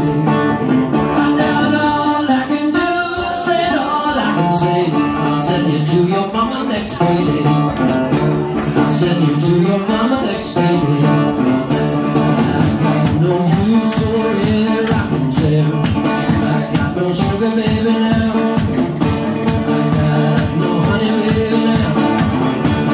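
Live blues band playing an instrumental break: resonator guitar over a steady bass-drum beat, with a harmonica lead whose notes bend up and down in pitch.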